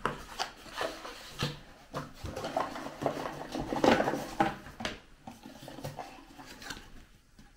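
Cardboard packaging and its contents being handled: the inner tray slid out of a small box, flaps opened, with irregular rustles, scrapes and light knocks against the table. It goes quieter for the last couple of seconds.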